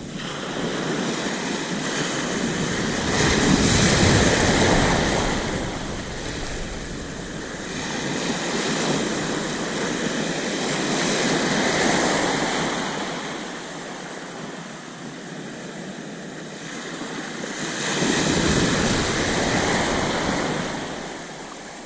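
Large waves breaking on a beach, the surf noise swelling and easing in three or four slow surges, with wind on the microphone.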